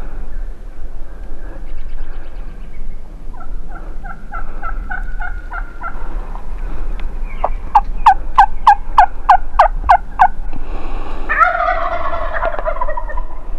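Merriam's wild turkey gobbling, a loud warbling call that falls in pitch, about eleven seconds in. Before it come a soft run of yelps and then a louder run of about ten sharp yelps.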